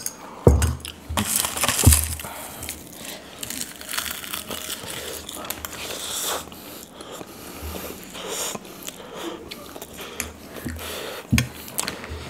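Mukbang eating sounds: spicy instant noodles slurped and chewed up close, with small clicks of a fork on a bowl. There are two heavy thumps, about half a second and two seconds in.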